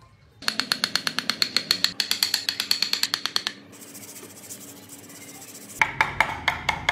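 Hand woodworking on a small wooden model: a fast, even run of short scraping strokes, about ten a second, for some three seconds, then a softer hiss, then a handful of sharp taps near the end.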